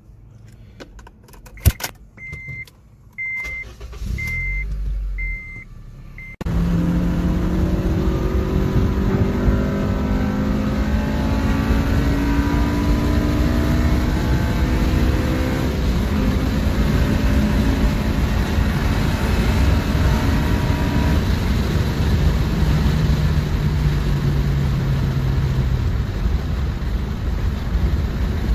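A car's warning chime beeps about six times amid a few clicks. Then a Honda Civic Si's four-cylinder engine runs loud at high revs at highway speed, its pitch climbing slowly, heard from inside the cabin with road and wind noise.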